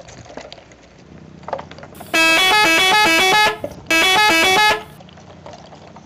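A melodic multi-note horn, a 'telolet'-style bus horn sound effect, plays a short tune in two blasts. The first lasts about a second and a half and starts about two seconds in; the second lasts about a second, after a brief gap. The pitch steps up and down from note to note.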